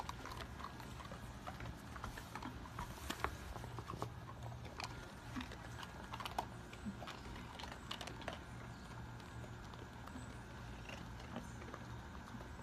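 A dog crunching and chewing a hard dog biscuit, making scattered, irregular crackling clicks. A steady low hum runs underneath.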